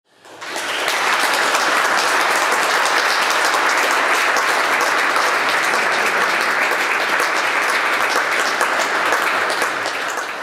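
Audience applauding: steady clapping from a large seated crowd that comes up quickly at the start and eases slightly near the end.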